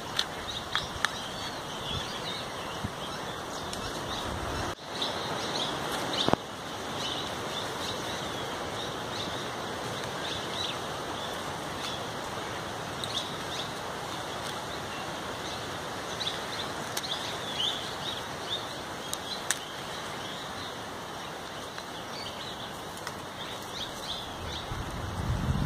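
Small birds chirping and calling on and off over a steady background hiss of open woodland, with a few faint clicks.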